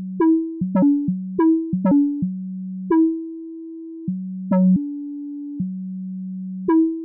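Eurorack modular synthesizer sequence: a square-wave VCO through a low-pass filter and VCA, its pitch stepped by the gates of a Quad Comparator fed an LFO sawtooth, each gate retriggering an ADSR envelope. Notes jump between a low and a higher pitch with a bright plucked attack on each. The rhythm is uneven, with quick changes at first and longer held notes later.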